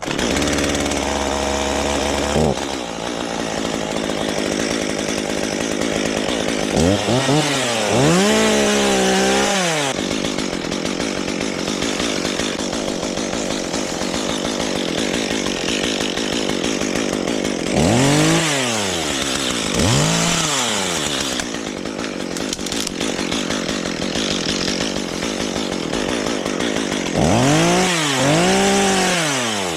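Two-stroke chainsaw running and cutting through maple limb wood, revving up and dropping back three times, at about 7, 18 and 28 seconds in.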